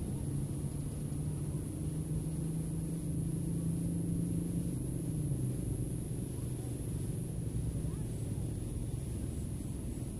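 Wind rumbling on the microphone, with a steady motor hum that fades out about halfway through and a constant thin high hiss.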